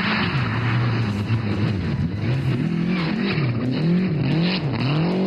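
Lancia Delta Integrale rally car's turbocharged four-cylinder engine driven hard on a gravel stage. The note holds fairly steady for about two seconds, then the revs rise and fall several times in quick succession as the driver comes on and off the throttle.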